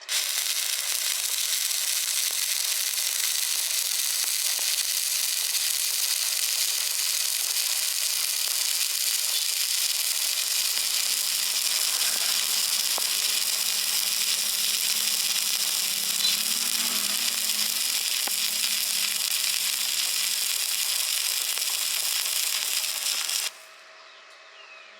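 Stick-welding arc burning steadily with a continuous sizzling crackle, which starts abruptly and cuts off suddenly near the end as the arc is broken.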